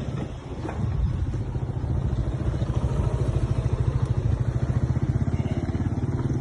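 An engine running steadily with a rapid low throb, growing louder about a second in and then holding.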